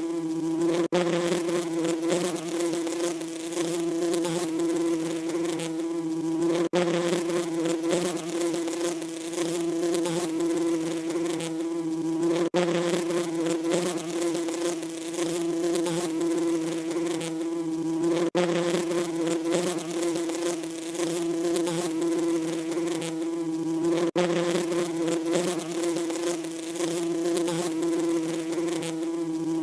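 Bees buzzing: a steady, continuous drone at one pitch, with brief momentary dips about every six seconds.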